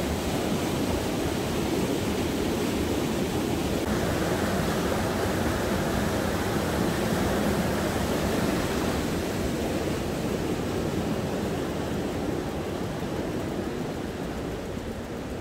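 Steady rush of water pouring through a river weir, easing off slightly near the end.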